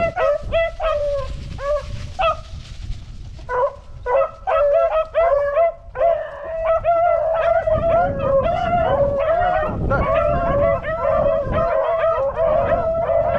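A pack of beagles baying as they run a rabbit's trail, many voices crying over one another in full cry, thinning briefly about three seconds in before the whole pack opens up again.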